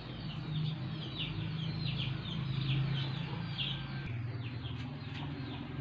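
Chickens chirping: a run of short, high, falling chirps, two or three a second, over a steady low hum.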